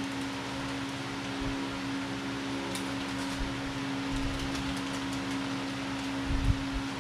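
Voxelab Aquila Pro 3D printer homing slowly: its motors and fan make a steady hum with one clear held pitch. A low thump sounds about six and a half seconds in.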